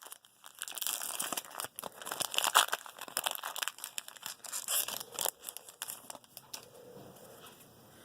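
Plastic-foil trading card pack wrapper crinkling and tearing as it is handled and opened: a dense run of small crackles for about six seconds, then dying down.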